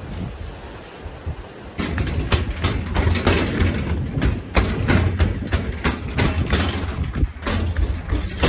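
Steady rush of river water; from about two seconds in, loud low buffeting and handling noise on a handheld phone's microphone, with many irregular knocks and thumps as the phone is moved about on a steel suspension footbridge.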